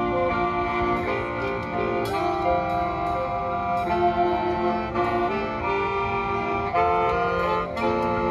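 High school marching band playing its field show: brass and winds holding full chords that shift every second or so, punctuated by a few percussion hits.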